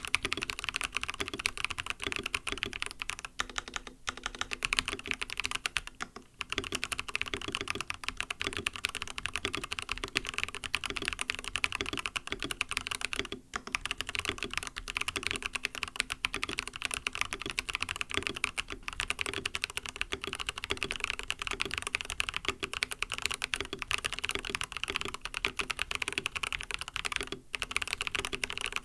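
Fast, continuous typing on an mStone Groove T mechanical keyboard with lubed MMD Coral 45 g linear switches and a silicone plate foam, a steady stream of muted key strokes with a few brief pauses.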